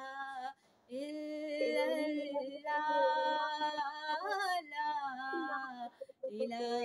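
A woman singing an Urdu naat (devotional song praising the Prophet) unaccompanied, in long held notes that waver in pitch, with a short breath break near the start and another near the end.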